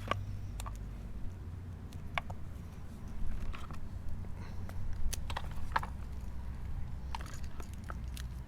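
Handling of a Slime portable 12 V tire inflator and its power cord: scattered small plastic clicks and light knocks, over a steady low hum.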